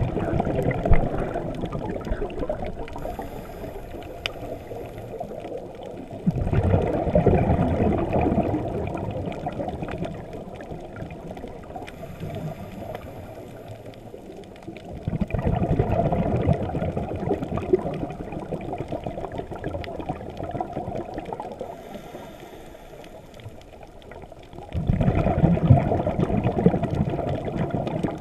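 Scuba diver's exhaled bubbles rushing and gurgling underwater, in four surges about nine seconds apart that each fade over a few seconds, with a faint high hiss shortly before each of the later surges.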